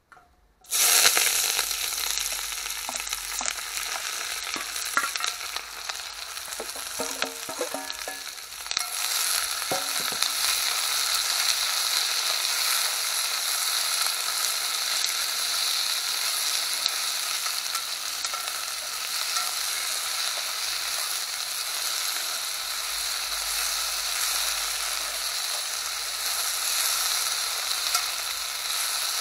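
Cut vegetables, onion among them, dropped into hot cooking oil in a pot and frying with a loud sizzle that starts suddenly about a second in. A spoon stirs through them, clicking a few times, and about nine seconds in the sizzle grows louder and settles into a steady hiss.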